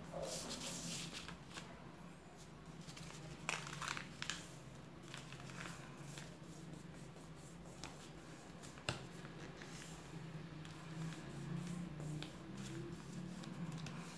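A sheet of paper being folded by hand on a tabletop: short rustling swishes and scrapes as the folds are pressed and creased flat, with one sharp tap about nine seconds in.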